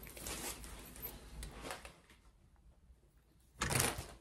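Soft rustling of fabric and plastic packaging as a pair of shorts is handled, a quiet lull, then a short, louder crinkle of a clear plastic bag near the end.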